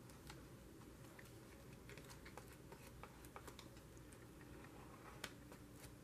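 Near silence with faint, scattered light taps and ticks of hands and a small hand-held block on paper and cardboard, as a glued page is pressed down. One sharper tap comes about five seconds in.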